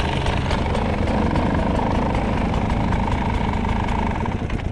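Beta enduro motorcycle's engine running at a steady pace while riding off-road, with a steady note that fades near the end, over rumbling wind noise.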